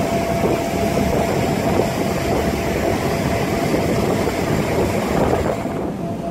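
Passenger ferry under way: its engine running steadily with a constant hum, under a rush of wind and water. The hiss drops near the end.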